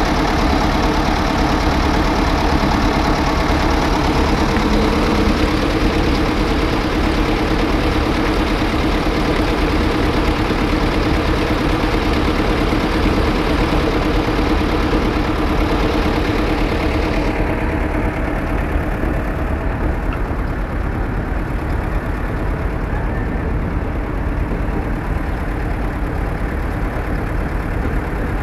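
Concrete transit mixer truck's diesel engine running steadily at idle, a low rumble with a steady drone, plus a hiss. About two-thirds of the way through the hiss cuts off suddenly and the drone fades soon after, leaving a lower, fainter rumble.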